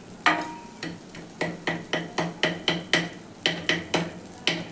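A spoon scraping and knocking against a pan while stirring puffed, roasted borax, in short regular strokes about four a second, each with a brief metallic ring.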